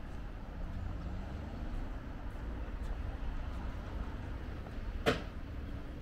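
Quiet city street ambience: a steady low hum of distant traffic with faint, regular footsteps of a person walking. One sharp click about five seconds in.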